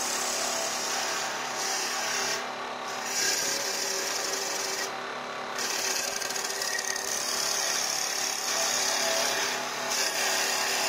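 CNC wood lathe turning a spinning wooden baluster blank: a continuous high hiss of the cutter shaving wood over a faint steady motor hum. The cutting hiss drops away briefly twice in the first half.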